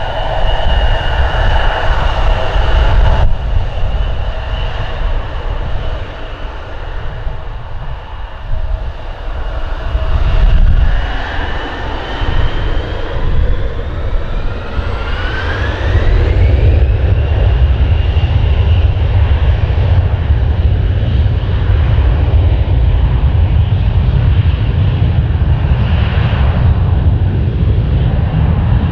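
Bombardier CRJ-700 regional jet's twin General Electric CF34 turbofans, first whining steadily at low power. About halfway through, the whine rises in pitch as the engines spool up to takeoff thrust. A steady deep roar of the takeoff run follows.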